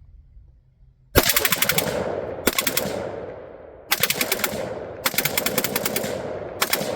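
Rapid gunfire: five fast strings of shots, the first starting about a second in, each shot sharp and followed by a ringing echo.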